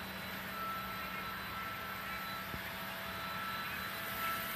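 Steady mechanical hum: a low drone under an even hiss, with a faint high whine that comes and goes, and one soft knock about halfway through.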